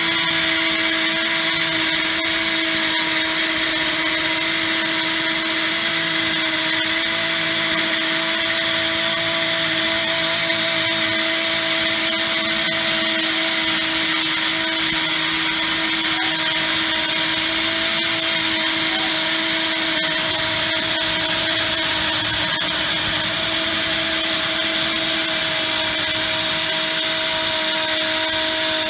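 Portable in-situ machining rig running steadily, a constant motor whine over a steady hiss.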